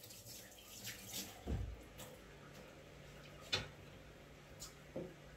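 Quiet room sounds: a mug set down on a wooden table with a dull knock about one and a half seconds in, then a few light clicks and handling noises over a faint low hum.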